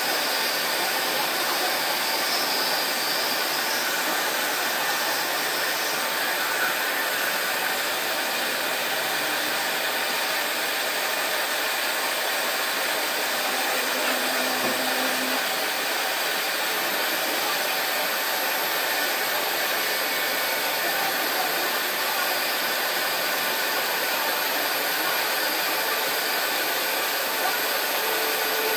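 A servo-controlled double-sided foam cutting machine running with a steady, even rushing noise that holds the same level throughout.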